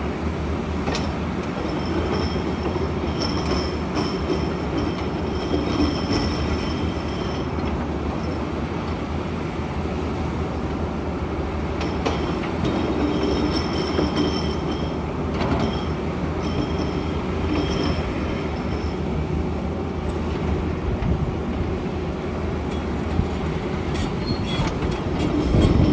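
SANY SY500H excavator's diesel engine running steadily under load, with two stretches of high metallic squealing a few seconds long. There are a couple of sharp knocks near the end.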